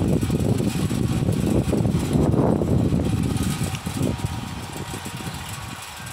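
Gusty wind buffeting the microphone, an irregular low rumble that eases about three and a half seconds in.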